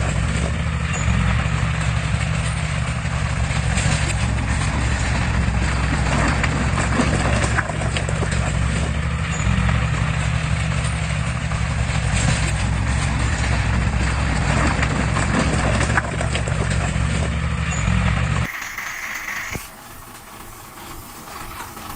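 Heavy diesel engine of a construction machine running steadily, with some clatter. It cuts off abruptly near the end, giving way to a quieter, different sound.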